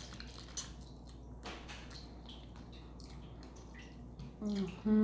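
Close-miked wet chewing and mouth clicks of someone eating a seafood boil, small irregular smacks over a quiet background. Near the end come two short voiced hums, louder than the chewing.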